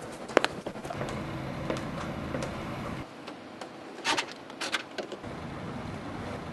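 Engine being started: a low rumble for about two seconds, a pause with two sharp clicks, then the rumble resumes near the end.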